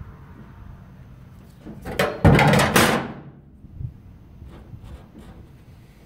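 A steel framing square being moved off a plastic truck-bed liner: a clunk and scrape about two seconds in, then quiet handling.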